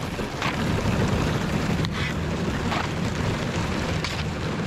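Kayak paddle strokes on a canal skinned with thin ice: four brief splashing, crackling strokes about a second apart over a steady low rumble.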